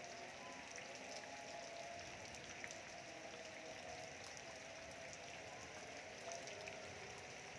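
Rain falling steadily and faintly, with scattered single drops ticking on nearby surfaces.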